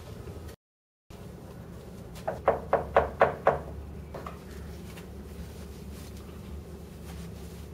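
Knuckles rapping on a wooden hotel room door: six quick knocks in just over a second, then one fainter knock.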